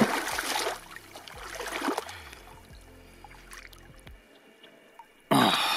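Shallow water splashing around a large mirror carp held in the water. There is a loud splashing at the start, a smaller one about two seconds in, and a sudden loud splash near the end.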